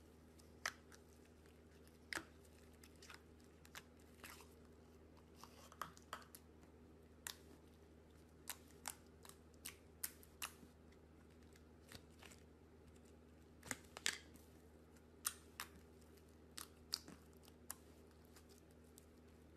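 Slime being poked, pressed and stretched by hand: quiet, irregular sharp clicks and pops, about one a second, over a faint steady hum.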